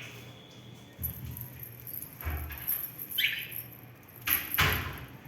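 Budgerigars giving short chirps, one a quick falling chirp about three seconds in, amid low bumps and a burst of rustling a little after four seconds.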